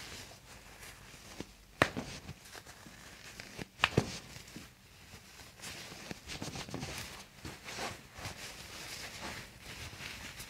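Toe joints cracking under a chiropractor's hands: two sharp pops about two seconds apart, the first about two seconds in, with soft rustling of hands on skin between them.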